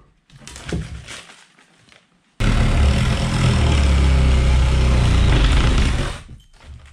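Battery-powered power tool running steadily for about four seconds while cutting at the edge of a round chimney hole in OSB wall sheathing. It starts suddenly a couple of seconds in, after a few light knocks, and stops near the end.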